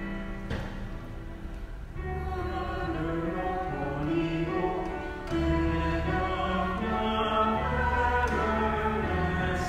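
A slow hymn sung by a choir with instrumental accompaniment. It opens with held instrumental notes, a fuller accompaniment comes in about two seconds in, and voices follow.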